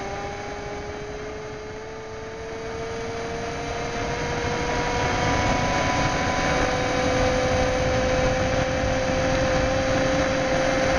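MACH1 1000 W 48 V electric scooter under way on asphalt, heard close to the rear wheel: its electric drive whines, rising slowly in pitch as the scooter gathers speed and then holding steady, over steady tyre and road noise.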